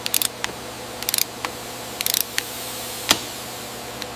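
A wrench ratchets in short, quick bursts of clicks as a braided hose fitting's nut is tightened, with a sharper single click about three seconds in, over a steady hum.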